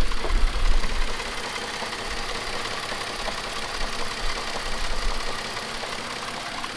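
BMW E60's dual-VANOS inline-six engine idling roughly, with a knock-like running sound. The owner puts this shaking, limp-mode idle down to a failed VANOS system.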